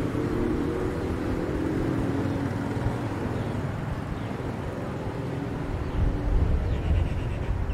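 A motor vehicle's engine passing and fading away over the first two seconds or so, over a steady hum of street noise. Wind buffets the microphone in the last couple of seconds, with a few faint bird chirps.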